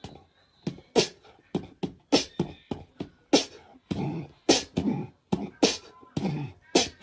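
A person beatboxing: sharp percussive mouth sounds two or three a second, with short voiced sounds between them.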